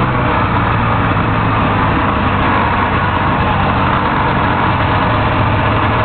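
Vintage Kawasaki Intruder snowmobile's two-stroke engine running steadily while the sled is ridden, heard from the rider's seat.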